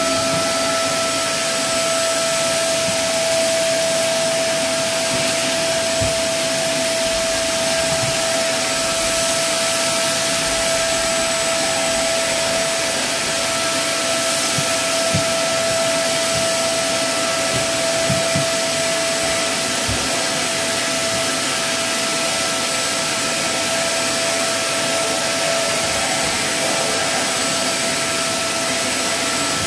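Vacuum cleaner running steadily and noisily, a high motor whine over a rush of suction air, with a few faint knocks as the wand bumps about.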